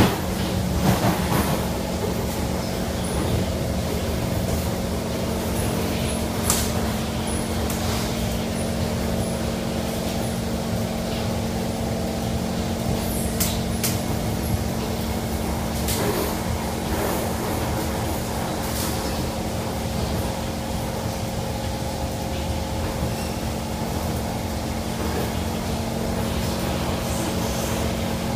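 Cabin sound of a Kawasaki Kinki Sharyo C151 metro train running: steady rumble of wheels on rail under a steady motor hum, with a few sharp clicks scattered through.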